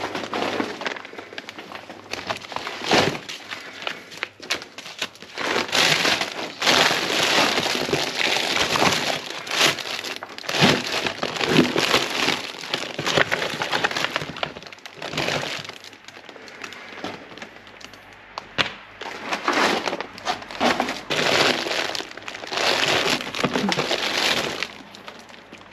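Plastic food packaging and cellophane crinkling and rustling as a gloved hand rummages through packaged food in a wheelie bin, in irregular bursts of crackling that come and go.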